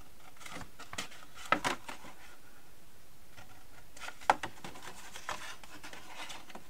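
Folded cardstock being handled, slid and lifted off a cutting mat: a few short rustles, scrapes and taps, the sharpest a click about four seconds in.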